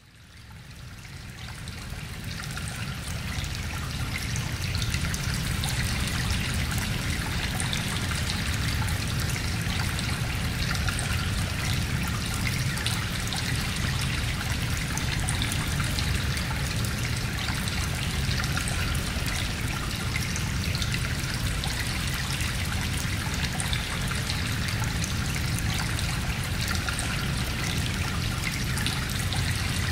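Steady rushing water, a continuous even wash with no rhythm of breaking waves, fading in over the first few seconds.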